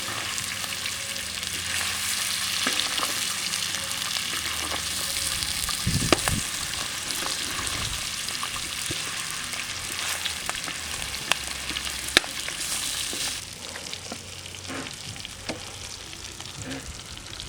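Bacon strips and small sausages sizzling in lard on a steel plough-disc pan, a steady frying hiss with scattered sharp pops. The sizzle grows quieter a few seconds before the end.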